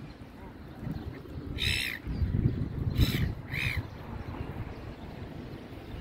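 A goose calling three times with short, harsh honks. The first comes about a second and a half in, and the last two come close together a little after three seconds.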